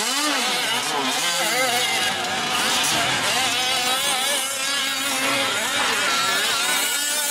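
Small two-stroke engines of 1/5-scale gas RC trucks racing. Several engines rev up and drop off throttle over and over, their pitches rising and falling and overlapping.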